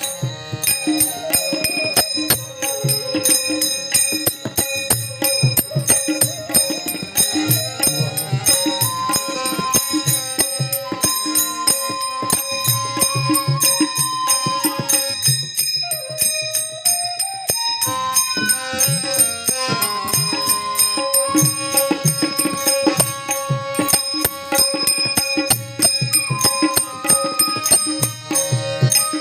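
Marathi Varkari bhajan music: small hand cymbals clash in a fast, steady rhythm over drum strokes, with a sustained melodic line moving in steps above them.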